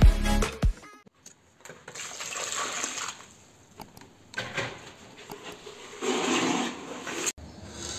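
Logo music ending within the first second, then short bursts of scraping and rustling, each about a second long, as hands handle a ceramic wall tile and a steel tape measure. A sharp click comes near the end.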